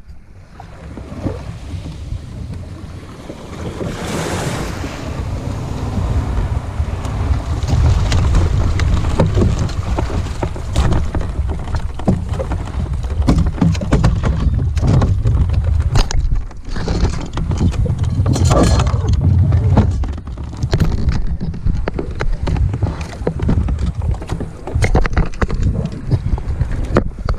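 Wind buffeting a kayak-mounted camera's microphone in an uneven low rumble, with water lapping and splashing against the kayak and frequent short knocks, busier from about ten seconds in.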